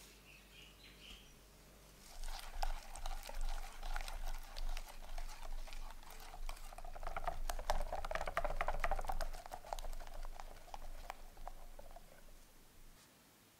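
Silicone-coated wire whisk beating egg yolks and sugar in a glass bowl: a fast, rhythmic wet swishing with many light clicks. It starts about two seconds in and eases off near the end.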